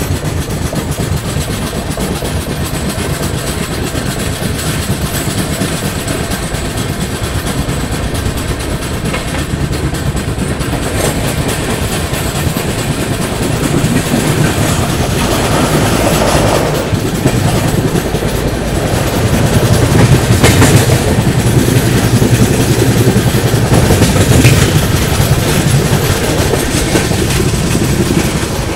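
Konark Express coaches running on the track as the train pulls out of a station, heard from the open coach door: wheels clacking over rail joints with a steady rumble. The noise grows louder as the train picks up speed, with the clacks more frequent from about halfway through.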